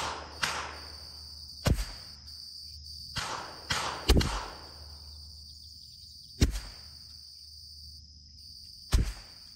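A CZ 457 MTR bolt-action .22 LR rifle firing four sharp shots about two and a half seconds apart, with fainter sharp knocks in between.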